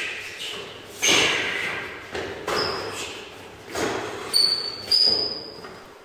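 A series of sudden loud bangs and thuds, about one every second, each echoing on in a large, bare room. The two later hits carry a short, high metallic ring.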